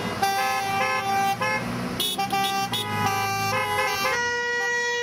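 Car horns honking from passing traffic, drivers signalling support for ending the war: several short toots at different pitches overlap, then one long steady honk begins about four seconds in.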